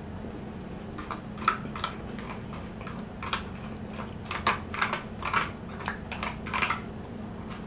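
A plastic fork scraping and clicking in an aluminium foil pot pie tin, with mouth and chewing sounds, as irregular short clicks over a faint steady hum.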